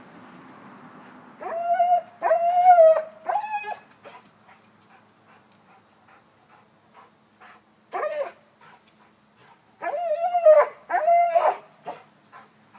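A young Cane Corso whining in high, drawn-out cries. Three come in quick succession about a second and a half in, one near the middle, and two more near the end, with faint ticks in between.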